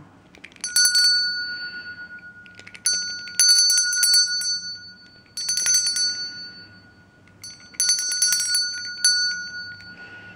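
A small bell shaken in four short bouts of rapid strikes, each bout ringing on with a steady high tone that fades before the next.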